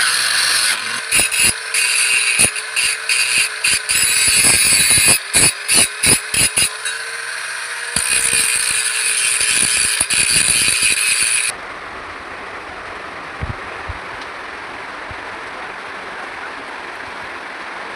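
A power tool running with a steady whine under a loud hiss, broken by many sharp clicks and knocks, which stops abruptly about eleven and a half seconds in, leaving a steady, quieter hiss.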